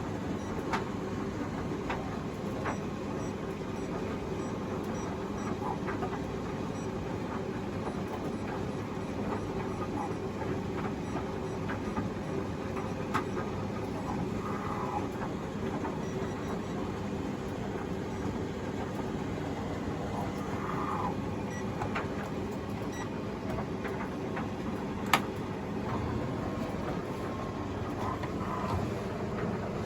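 Panasonic NA-147VB5 (Vestel-built) washing machine running: a steady motor hum with scattered faint clicks, and one sharper click or knock about 25 seconds in.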